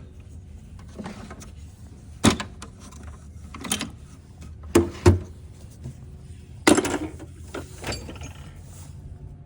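Scattered clicks, clanks and knocks from hand tools and parts being handled on the work, about eight in all, the loudest about five seconds in and near seven seconds in, over a steady low hum.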